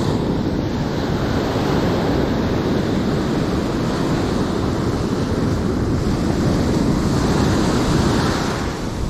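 Ocean surf breaking and washing up over the sand at the water's edge, a steady loud wash, with wind noise on the microphone.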